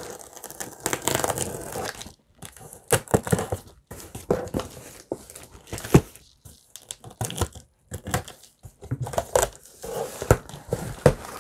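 Packing tape on a cardboard shipping box being slit with a box cutter and torn, then the cardboard flaps scraped and knocked as the box is pulled open. A rough rasping stretch in the first couple of seconds gives way to irregular sharp knocks and rustles.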